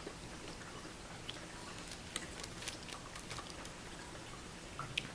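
Faint chewing while eating fried chicken: scattered small mouth clicks and smacks, most of them from about two to three and a half seconds in.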